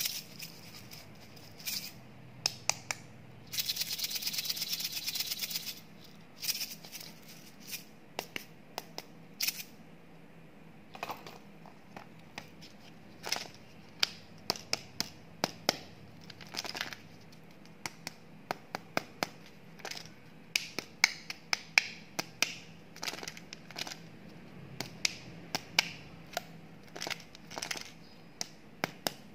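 Fingers and fingernails tapping, clicking and scratching on plastic candy packaging: scattered sharp clicks throughout, with a dense run of rapid rattling clicks for about two seconds near the start.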